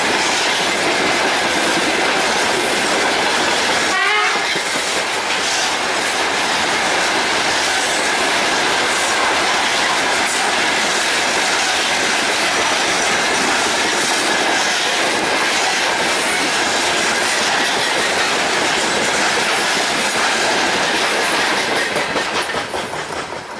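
Freight train of covered hopper wagons rolling past close by, its wheels running and clattering over the rails in a steady, loud rumble. A brief wavering high tone comes about four seconds in. The noise falls away near the end as the last wagon passes.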